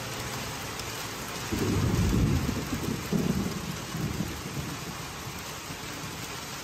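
Steady rain with a roll of thunder that swells about a second and a half in, rumbles for about three seconds and fades back into the rain.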